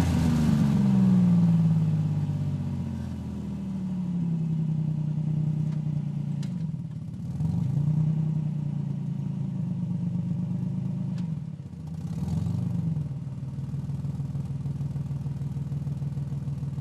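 Car engine settling from a rev to a steady idle, its pitch falling over the first few seconds. It is blipped twice more with short throttle revs, about seven and twelve seconds in, then idles evenly again.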